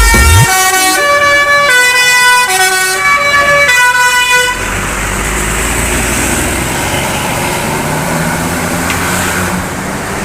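Tour bus's basuri melody horn playing a tune of held notes stepping from pitch to pitch for about four and a half seconds. It then stops, leaving the steady rumble of the bus's engine and road noise.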